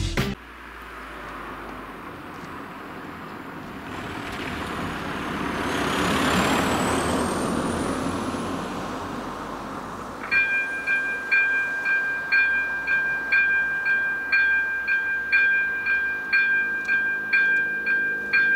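Electronic warning bell of a Czech level crossing starting up about ten seconds in, dinging steadily about twice a second as the crossing activates and its warning lights begin flashing. Before it, a rushing noise swells and fades over several seconds.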